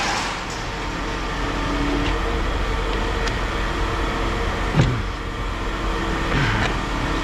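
Steady vehicle engine noise with a single sharp knock about five seconds in and a couple of fainter ones later.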